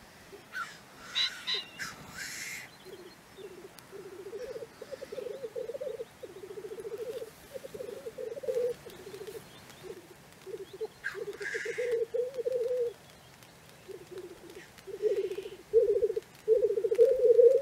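Lekking black grouse cock (blackcock) giving its display song: a continuous bubbling, cooing 'rookoo' in rapidly pulsed phrases of a second or two, louder toward the end. Short harsh hissing 'sneeze' calls come near the start and again about eleven seconds in.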